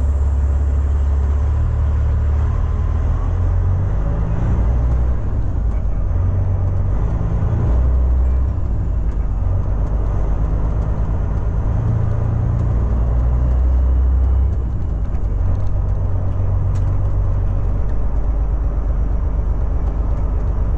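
Caterpillar C15 diesel of a Peterbilt 389 truck running while pulling an empty container chassis: a loud, steady low drone whose pitch shifts a few times as the engine speed changes.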